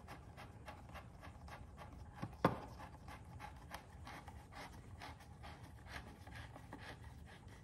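Screwdriver driving a screw into a scooter's plastic headlight housing: a quick, even run of faint ticks and scratches as the screw turns, with one sharper click about two and a half seconds in.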